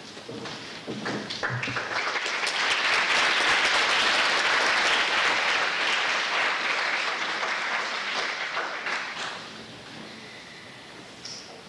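Audience clapping in applause, building over the first two seconds, loudest a few seconds in, then thinning out and dying away about nine to ten seconds in.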